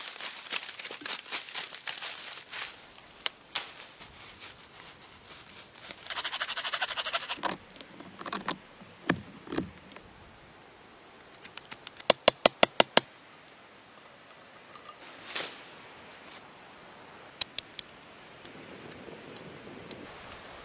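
Crunching and rustling of dry leaf litter being scooped up by hand, then a scraping burst of about a second and a half. Near the middle comes a quick, evenly spaced run of about a dozen sharp clicks, and two more sharp clicks follow later.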